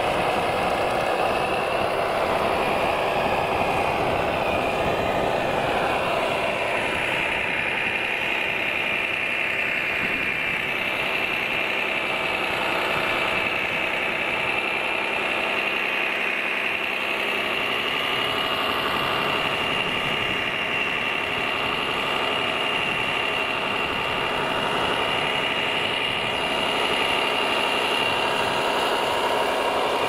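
Radio-controlled model truck running, with a steady high motor whine whose pitch shifts slightly a few times.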